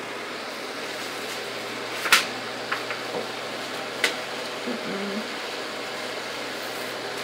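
Phone microphone handling noise: a steady hiss with a few sharp clicks and knocks, the loudest about two seconds in, another near four seconds.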